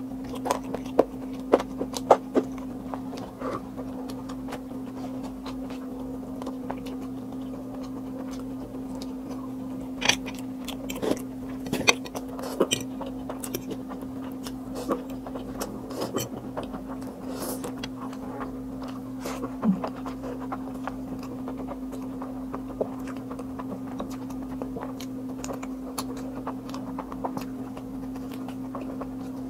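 Close-up eating sounds: noodles sucked in from a fork, chewing, and a bite into a chicken wing, with scattered sharp clicks from a metal fork on a plate. A steady low hum runs underneath.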